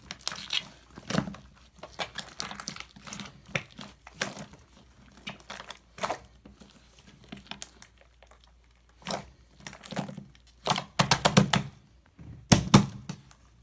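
Slime being kneaded and mixed by hand, giving irregular sticky crackling and popping clicks, with denser runs of clicks in the last few seconds.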